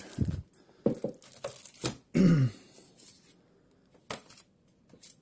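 Handling noise from a cardboard box and paper packing: several short rustles, scrapes and knocks in the first couple of seconds, with a brief grunt-like vocal sound about two seconds in, then only a few faint clicks.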